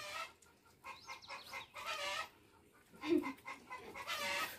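Chickens clucking faintly, with short chirps, and two brief breathy hisses, one about halfway and one near the end.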